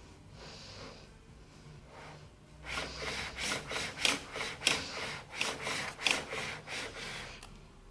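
Epson Stylus Pro 4880 printer's carriage mechanism working, a rapid irregular run of scraping strokes with a few sharp knocks, starting about three seconds in and stopping near the end. The knocking comes from the carriage belt tensioner mechanism.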